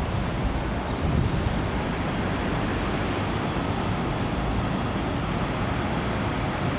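Steady rushing background noise with a low rumble, even throughout, with no separate drips standing out; a faint, broken high whistle sits above it.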